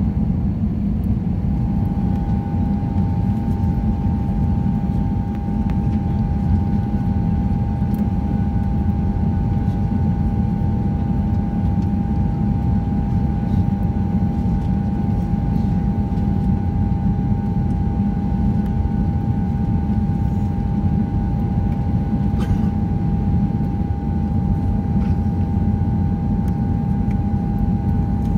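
Airbus A320 cabin noise on approach: a steady low roar of the engines and rushing air, with a steady hum held above it.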